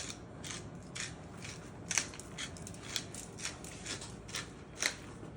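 Chicken breast frying in oil in a pan: a low sizzle with scattered, irregular pops and crackles, a few a second, the sharpest about two seconds in and again near the end.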